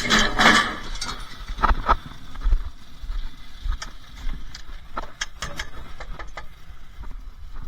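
Scrap metal being handled: scattered knocks, clanks and clatter, with a loud rattle about the first half-second in.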